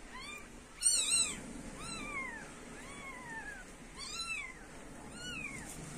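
Newborn kitten mewing: a string of short, thin, high-pitched cries, each rising then falling in pitch, repeated about once a second, sometimes in quick pairs.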